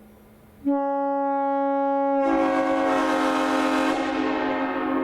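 Nathan Airchime M5 five-chime train horn blown on compressed air. A few of its chimes start abruptly under a second in, and the full chord comes in about a second and a half later with a loud rush of air. Near the end the rush dies down while the chord holds steady.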